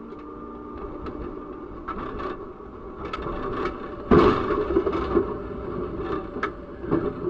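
Tram running along its rails with a steady hum, then about four seconds in a loud crash as its front strikes a car turning across its path, followed by scraping and knocks as the tram pushes the car along.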